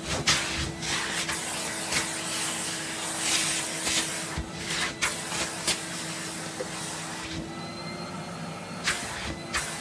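Numatic Henry vacuum cleaner running, its motor giving a steady hum under the rush of air, with several sharp clicks and knocks through it. The rush of air drops for a second or so about three-quarters of the way in.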